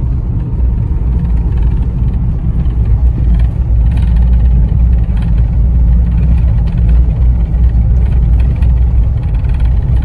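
Steady low rumble of a Mahindra vehicle's engine and tyres driving on an unpaved dirt road, heard from inside the cab.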